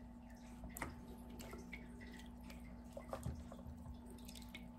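Faint splashing and dripping of water as kitchen tools (a whisk and a silicone spatula) are moved about in buckets of soapy wash water and rinse water, with a few soft ticks and splashes about a second in and again around three seconds in, over a faint steady hum.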